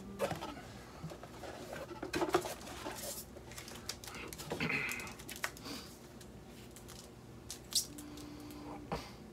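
Rustling, tapping and clicking of cardboard and plastic-wrapped game components being handled and unpacked, in irregular short bursts over a faint steady hum.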